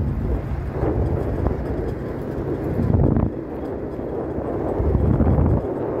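Wind buffeting the microphone: an irregular low rumble that swells and dips in gusts.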